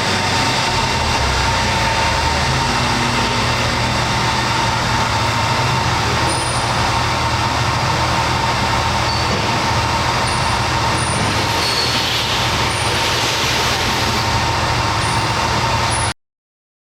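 Top Tier floor-level palletizing system running: steady, loud machine noise with a constant whine and several short high-pitched chirps in the second half. The sound cuts off abruptly near the end.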